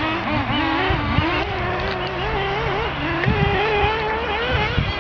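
Several radio-controlled off-road cars' motors whining together, their pitch rising and falling as they rev up and down.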